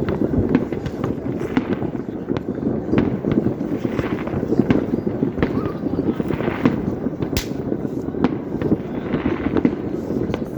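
Fireworks going off continuously: a dense rumble of many bursts with constant crackling and popping, and one sharp, loud crack a little past the middle.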